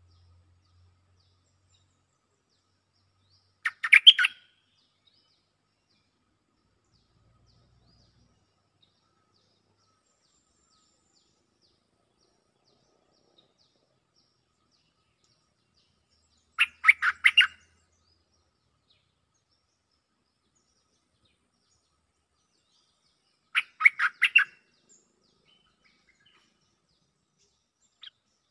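Bulbul calling: three short bursts of quick chirping notes, about 4 s, 17 s and 24 s in, each lasting under a second, a call-and-answer exchange between the caged decoy and a wild resident bird.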